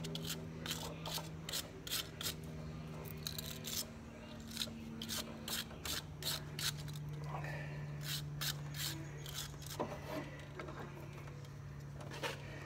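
Irregular small clicks and scrapes of a battery-charger harness lead and its terminal being handled and positioned at a tractor battery's negative terminal, over a steady low hum.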